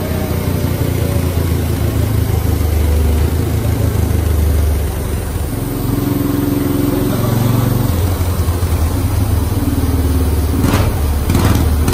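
Yamaha TT-R 230's air-cooled single-cylinder four-stroke engine running under load on a motorcycle chassis dynamometer during a power test. The engine note holds steady, dips briefly about five seconds in, then carries on at a slightly different pitch.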